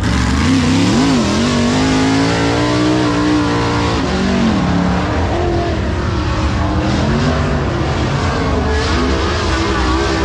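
Dirt late model race car V8 engine at high revs, its pitch climbing, holding, then dropping off about four seconds in and rising again later, as on laps around a dirt oval.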